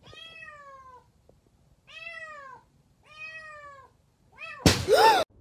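A cat meowing: three drawn-out calls, each falling in pitch, then a short fourth one. Near the end comes a much louder, rough cry that rises and falls in pitch and cuts off abruptly.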